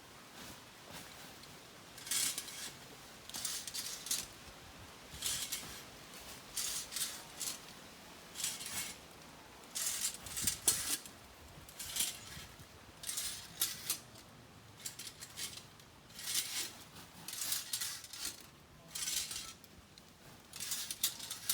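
A metal coconut-tree climbing device scraping and clinking against the palm trunk as it is shifted step by step, giving short rasping clatters about every second, often in pairs.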